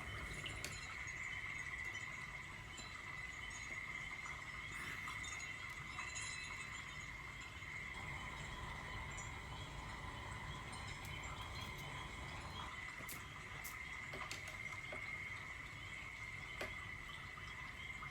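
A steady, high-pitched insect chorus, faint, with a few small clicks.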